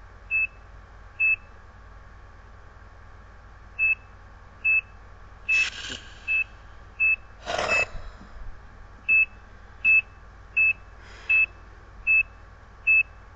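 HP bedside patient monitor giving short high QRS beeps in time with the heartbeat, about one beep every 0.7 to 0.8 seconds (around 75 a minute), with one pause of about two and a half seconds after the second beep. Two short rustling noises come about halfway through.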